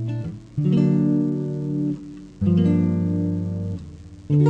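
Background music: acoustic guitar chords ringing out one after another, a new strum about every second and a half to two seconds.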